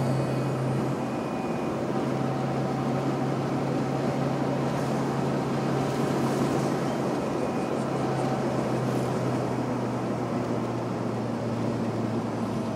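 Subaru Sambar Dias Classic kei van cruising at highway speed, heard from inside the cab: a steady engine drone over road and tyre noise. The drone drops away near the end.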